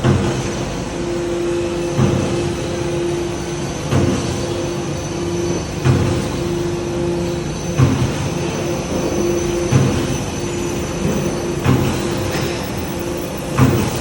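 Factory machinery running with a steady hum and a high whine, and a low thump about every two seconds.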